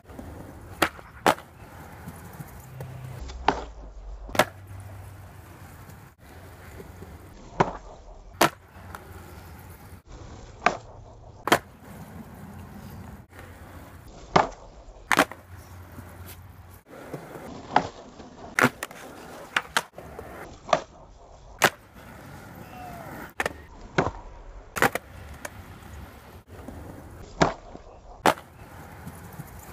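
Skateboard wheels rolling on concrete, broken by sharp pairs of clacks: the tail popping and the board landing about half a second later. It repeats roughly every three seconds through a string of double kickflips and double heelflips.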